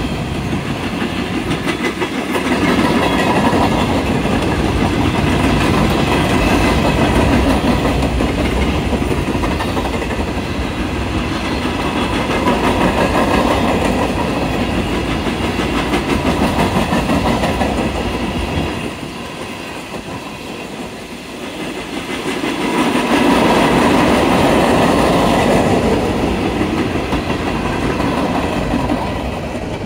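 Norfolk Southern coal hopper cars rolling past: steel wheels clattering over the rail joints with a continuous rumble that swells louder twice and dips in between. The last cars of the train pass near the end.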